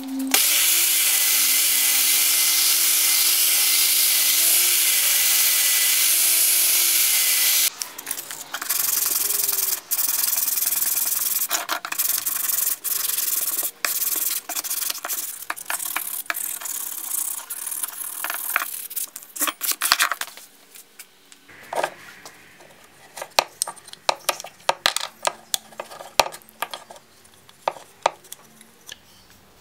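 Electric belt sander running steadily for about the first eight seconds and then cutting off. It is followed by hand-sanding with sandpaper on wood in repeated rubbing strokes, and near the end by light, sharp wooden clicks and knocks as the small wooden toy parts are handled.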